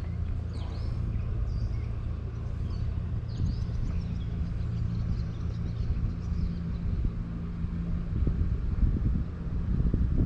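A boat motor running with a steady low hum, with wind buffeting the microphone in gusts near the end and faint bird chirps in the first few seconds.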